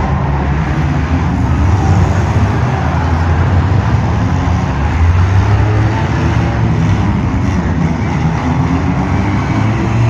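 The engines of several compact demolition derby cars running and revving loudly together, in a continuous din.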